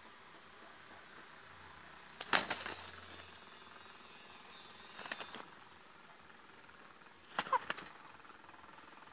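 Two roosters fighting, their wings flapping in three short flurries as they clash: about two seconds in, again about halfway through, and once more near the end.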